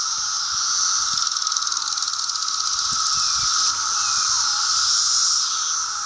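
Chorus of 17-year periodical cicadas (Brood II) calling: a loud, steady, dense drone, with short calls falling in pitch every second or two.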